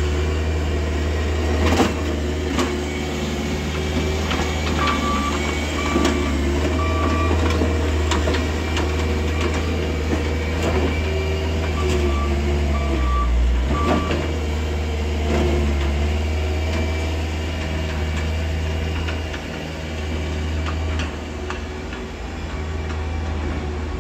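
Bobcat skid-steer loader's diesel engine running steadily under load, with its reversing alarm beeping in two short runs of a few beeps each, about a third of the way in and again past the middle, and scattered knocks from the bucket working the gravel.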